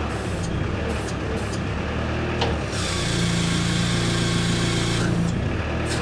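Manitou telehandler's diesel engine running as the hydraulics are worked through the freshly rebuilt spool valve block. A few light clicks come early on. About halfway through, the engine note rises and a hiss joins it for about two and a half seconds, then both drop back.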